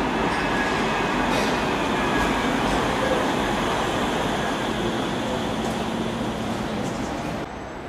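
Manchester Metrolink tram pulling into an underground platform: the steady running noise of its wheels and motors, echoing in the enclosed station. It cuts off sharply near the end.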